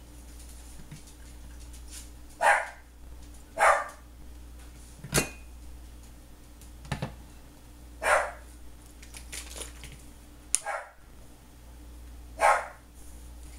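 A dog barking single barks a few seconds apart, four times, with a few sharp knocks of kitchenware on the counter in between.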